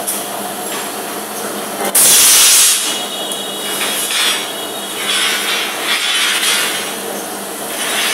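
Electric rebar cutting machine running with a steady hum; about two seconds in, a loud, sharp burst lasting under a second as its blade shears through a 22 mm steel reinforcing bar. Softer noises follow, repeating about once a second, as the bars are worked through the machine.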